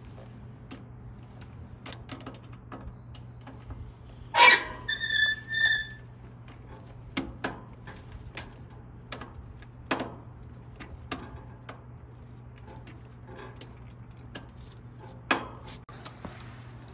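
Scattered clicks and knocks of hardware being handled over a steady low hum. A sharp knock about four and a half seconds in is followed by two short squeaks.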